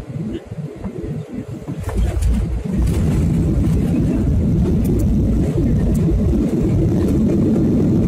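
Boeing 737-800 on its landing roll, heard from the cabin over the wing. About two seconds in, a loud, steady low rumble sets in with a few rattles, and it swells about a second later. This is typical of the CFM56-7B engines spooling up into reverse thrust after touchdown.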